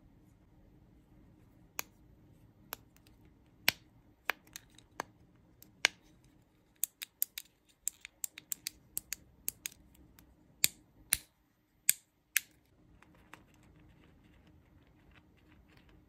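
Silicone pop-it bubbles on a toy doll's hair pressed by fingertips, each giving a sharp pop. The pops come a few at a time at first, then in a quick run about halfway through, and stop about three-quarters of the way in.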